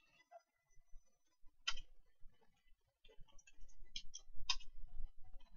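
Computer keyboard keys clicking in scattered keystrokes, a few at a time with pauses between. The loudest come about two seconds in and again around four to four and a half seconds in.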